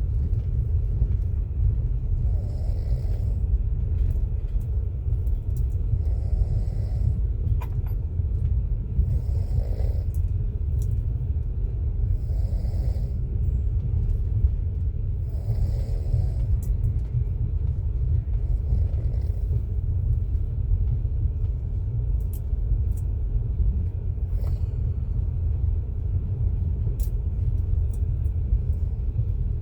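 A person snoring in a moving train, one snore roughly every three seconds, fading later on. Under it runs the steady low rumble of the train carriage.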